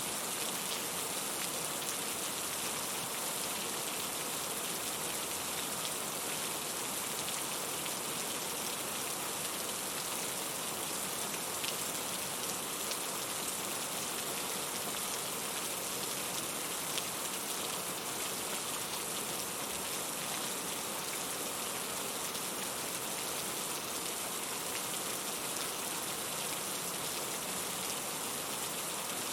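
Steady rain falling, a constant even hiss with fine scattered patter of drops.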